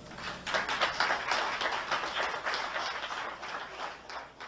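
Small audience applauding: a dense patter of hand claps that swells about half a second in and thins out near the end.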